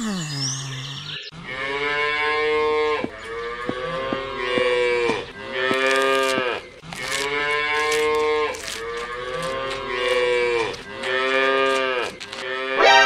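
Cattle mooing: about six drawn-out moos one after another, each one to two seconds long.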